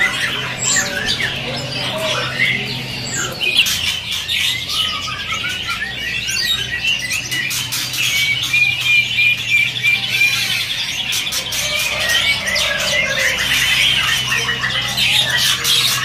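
Many caged songbirds of mixed kinds chirping and calling over one another, with a fast trill of repeated notes about halfway through. A steady low hum lies underneath.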